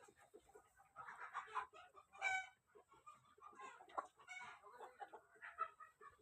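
Lohmann Brown laying hens clucking, many short overlapping calls, with one louder drawn-out call from a hen about two seconds in.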